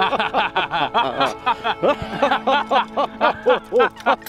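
Men laughing loudly, a fast run of repeated 'ha-ha' pulses that goes on without a break.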